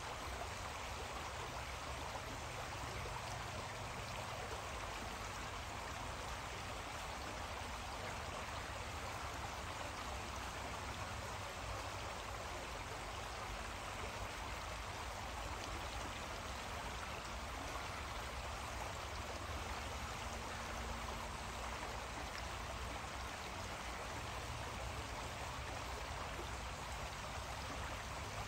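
Steady rush of a small creek flowing, with a low rumble underneath.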